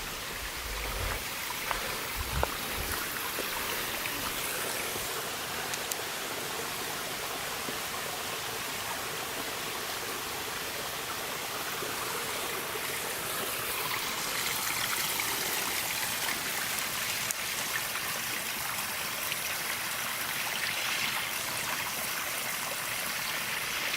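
Steady rushing water of the mountain stream at the Dzhur-Dzhur waterfall, an even hiss with no break.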